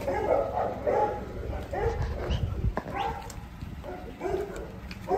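Presa Canario dog giving a run of short, pitched barks and whines.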